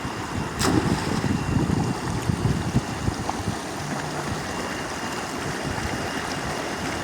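Wind buffeting the microphone over moving water, with one brief sharp sound about half a second in.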